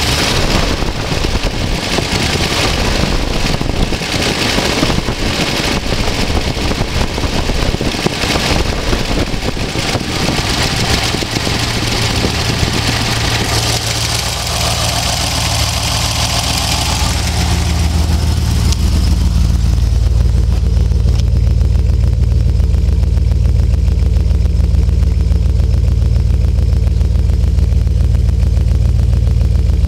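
Rover P6 3500's freshly started V8 idling. For about the first half it is heard up close in the engine bay as a dense, hissy engine noise. From about halfway it is heard at the tailpipe as a steady, deep exhaust note.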